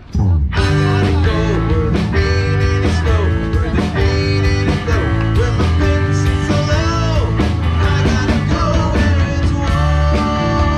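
Live rock band playing, with electric guitars and a drum kit; the music cuts in abruptly at the start and then keeps a steady beat.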